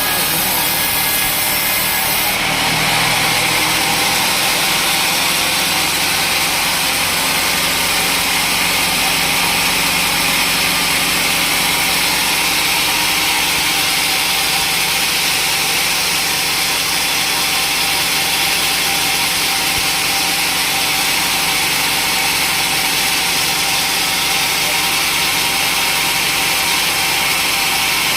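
Sawmill saw machinery running steadily: a constant mechanical drone with a hiss over it. The sound shifts slightly about two seconds in.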